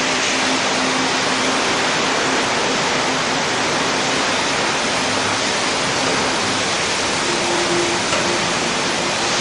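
Heavy rain and wind of a rainstorm: a loud, steady, unbroken rush of noise.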